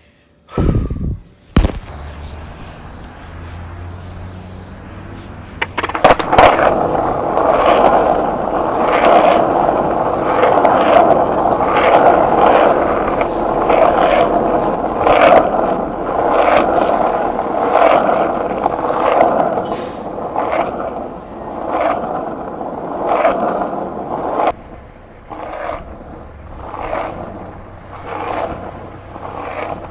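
Loud scraping rumble with a knock about once a second, typical of a phone's microphone rubbing and jolting while it is carried by someone walking along a street. It eases off near the end.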